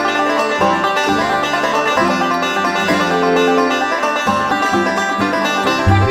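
Bluegrass music with banjo picking.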